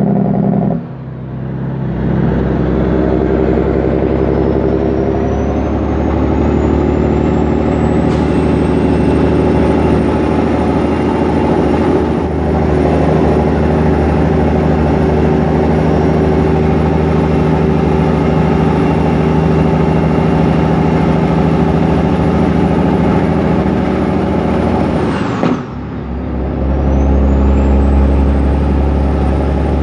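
International 9900 truck's diesel engine pulling steadily, heard from inside the cab, with a thin high whine that climbs slowly and then holds. The engine sound drops away briefly twice, about a second in and near the end, then picks up again; after the second dip the whine falls and climbs once more.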